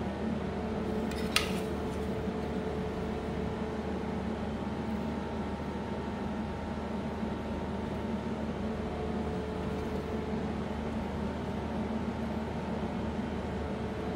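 A small motor running with a steady hum and hiss, with one short click about a second and a half in.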